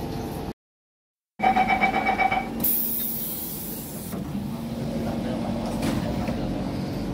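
Siemens C651 MRT train at a station: after a brief dropout in the sound, the door-closing warning chime beeps rapidly for about a second, then a burst of air hiss, then the car's steady running noise with a low hum as it moves off.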